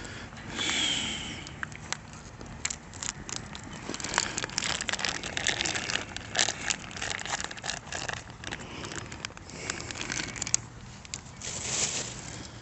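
Wood campfire crackling, with many irregular sharp pops.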